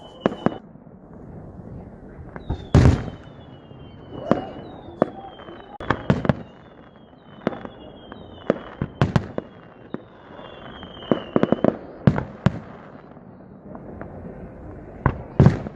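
Fireworks going off in quick succession: sharp bangs of bursting shells, the loudest about three seconds in and near the end, mixed with several high whistles from whistling fireworks that each fall slightly in pitch.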